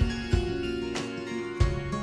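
Background music: held notes over a drum beat.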